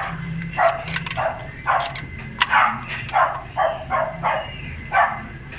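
A dog barking repeatedly in short separate barks, about two a second, with one sharp click about halfway through.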